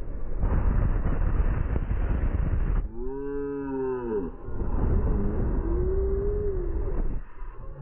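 Wind rushing over the microphone on a slingshot amusement ride, then a woman's cries, slowed down so they come out as two deep, drawn-out moans that rise and fall in pitch.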